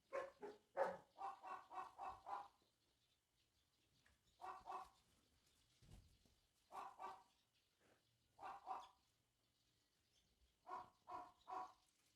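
A dog barking faintly in short bursts: a quick run of about seven barks at the start, then pairs and a group of three every couple of seconds.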